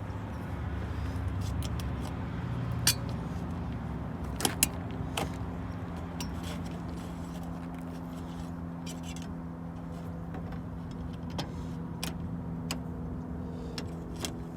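A wire coat hanger scraping inside a car door and window, with a few sharp metallic clicks and taps, over a steady low hum.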